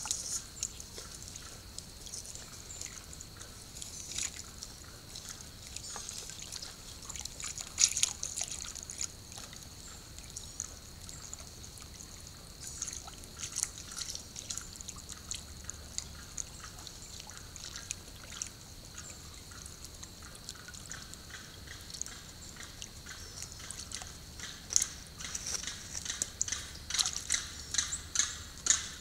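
Small splashes and drips of shallow swamp water as white ibises wade and probe their bills into it, scattered throughout, with a sharper splash about eight seconds in and a quicker run of splashes near the end.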